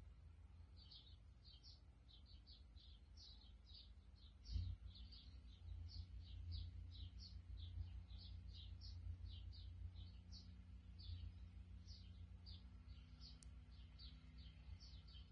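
Small birds chirping faintly, short high chirps repeating about three a second, over a low steady rumble. A single dull thump about four and a half seconds in.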